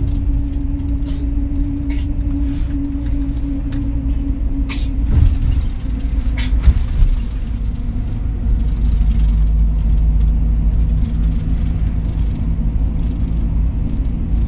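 Steady low rumble of a moving vehicle heard from inside, with a faint hum that fades about five seconds in and a couple of sharp clicks near the middle.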